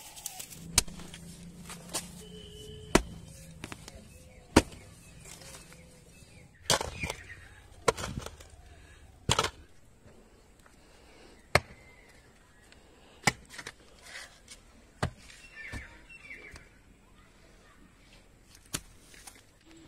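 A digging tool's blade chopping into dry soil while a planting pit is dug: about ten sharp strikes at irregular intervals, one to two seconds apart.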